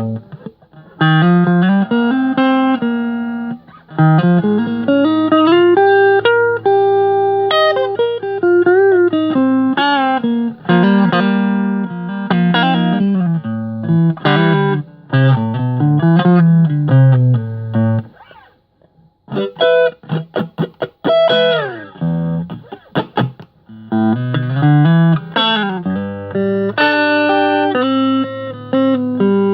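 Agile Telecaster-copy electric guitar played solo: sustained single notes and chords, with notes bent and slid up and down. About two-thirds of the way through it stops briefly, then comes a run of short, choppy strums before the ringing notes resume.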